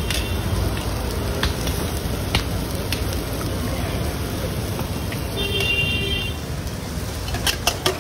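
Steady street traffic noise, with a short horn toot about five and a half seconds in. Near the end comes a quick run of sharp metal clinks from a spoon striking a steel tumbler as eggs are beaten in it.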